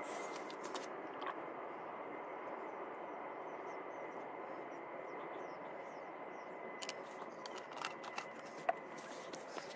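Quiet pouring of motor oil from a plastic bottle into an improvised bottle-and-hose funnel on an engine's filler, heard mostly as a low steady hiss. A few light plastic knocks come near the end as the bottle is handled.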